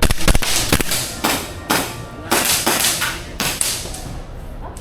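Airsoft guns firing in a close-quarters game, a quick cluster of sharp shots at first and then single cracks every half second or so, each with a short hissing tail.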